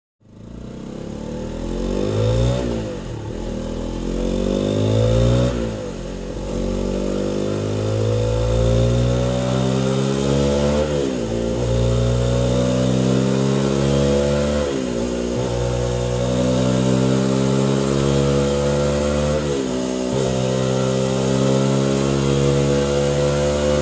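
The stock exhaust of a 2021 Honda CB125R, its single-cylinder 125 cc engine being revved. The pitch drops and climbs again every few seconds, then rises slowly over the last half.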